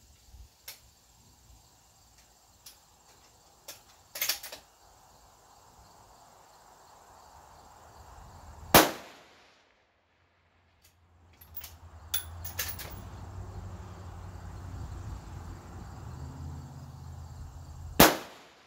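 .223 Remington bolt-action rifle fired twice, each shot a single loud crack, the first about nine seconds in and the second near the end. A few sharp clicks come before and between the shots, and a low steady rumble runs for several seconds before the second one.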